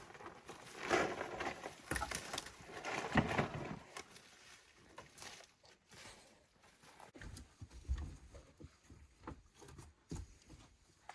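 A bear moving about at a bait station: irregular rustling and scuffing, loudest in the first few seconds, then softer scattered clicks and knocks.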